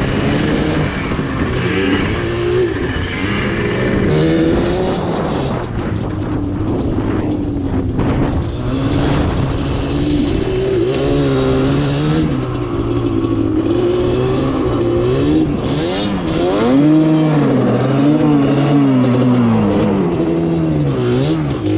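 Two-stroke ATV engine being ridden, revving up and down over and over as the throttle is worked, with several quick rises and drops in pitch in the second half.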